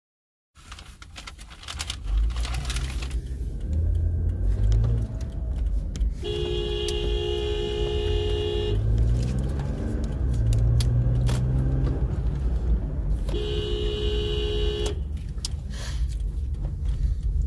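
Car horn sounding two long blasts, the first about two and a half seconds and the second about a second and a half, over a car engine's rumble that rises and falls in pitch, heard from inside a car.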